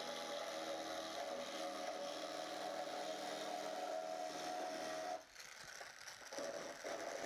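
Small hand-held rotary milling tool whining steadily as its cutter bit mills the surface of a high-density polyethylene (PEHD) part, roughening it to prepare it for welding. The tool stops about five seconds in and starts again about a second later.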